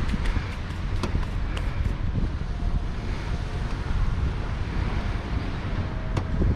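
Wind buffeting the microphone: a steady low rumble, with a couple of sharp clicks, one about a second in and one near the end.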